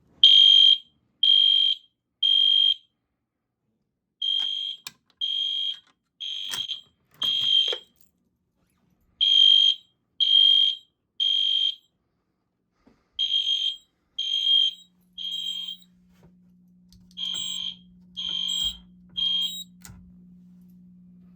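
Fire alarm sounder beeping a high-pitched tone in the temporal-three evacuation pattern: groups of three half-second beeps (four in one group) separated by pauses. The system is in alarm after being set off with a key switch during a test.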